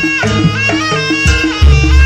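Live Javanese traditional dance music: a reedy wind instrument plays a sustained, sliding melody over drum strokes, and a deep booming stroke comes in about one and a half seconds in.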